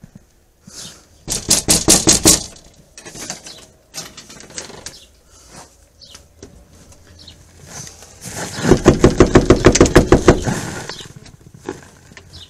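Fast, hard pounding on a house's front door: a burst of rapid knocks lasting about a second, then a longer, louder burst about seven seconds later.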